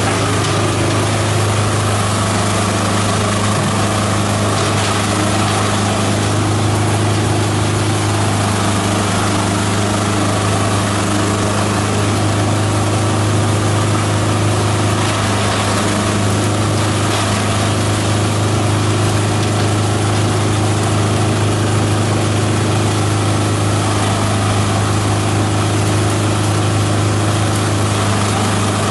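Multi-purpose chopper-shredder running steadily while leafy branches are fed in and shredded. A constant low hum with a wash of noise from the chopping runs through, with no strokes or breaks.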